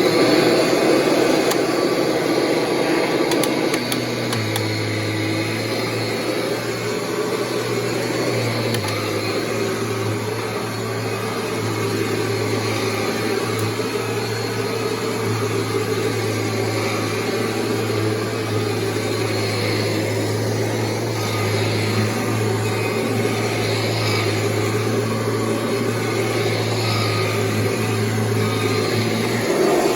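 Kirby G5 upright vacuum cleaner running steadily while vacuuming. A lower steady hum joins about four seconds in and drops out near the end.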